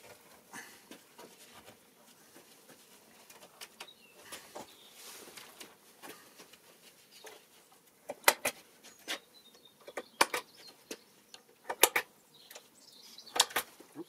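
Scattered light taps and clicks of a pointed marking tool, pressed into the holes of a perforated strip on a wooden board to mark hole positions. From about eight seconds in come several sharper clicks, mostly in quick pairs.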